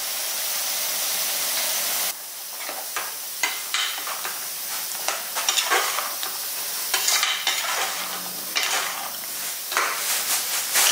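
Sizzling as ground paste is poured into frying masala in an aluminium pressure cooker, a steady hiss for about two seconds. Then a steel slotted spoon stirs the thickened gravy, with irregular clinks and scrapes against the pot.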